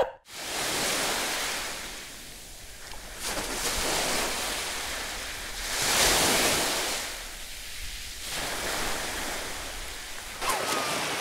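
Small sea waves washing onto the shore: a hissing wash that swells and falls back every two to three seconds, loudest about halfway through.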